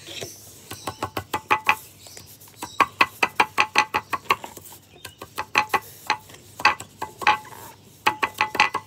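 A hand tool knocking and grinding against the inside of a small hard container in quick runs of clicks, several a second, many with a short ring: ingredients being mashed up.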